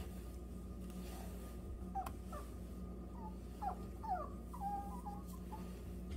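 A dog whimpering: a string of short, high whines that slide up and down in pitch, starting about two seconds in and stopping shortly before the end.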